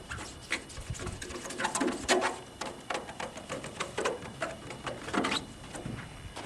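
Plastic taillight lens of a 1987 Ford F150 being hand-polished with a cloth and Meguiar's PlastX: quick, irregular rubbing strokes, several a second.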